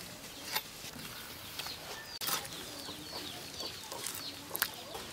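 Chickens clucking and small birds chirping, with a few sharp knocks and crunches as raw chicken is pressed through a boti blade over a bamboo tray, the loudest a little after two seconds and near the end.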